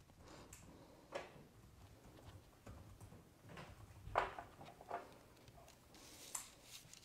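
A few faint taps and clicks of metal tweezers and fingers handling quilled paper on a card, the loudest about four seconds in.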